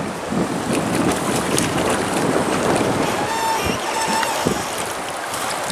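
Steady rush of river current around a drift boat, with wind on the microphone.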